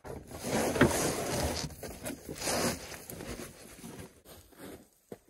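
A rolled ground mat being pulled and dragged across a truck bed, a rough scraping rustle in two main pulls, the first about a second in and the second around two and a half seconds in, fading away by about four seconds.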